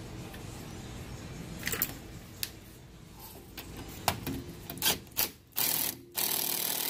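Ratchet with a 14 mm socket clicking and metal-on-metal scraping as the rear brake caliper bolts are fastened, in scattered clicks and short rasping bursts that come thicker near the end.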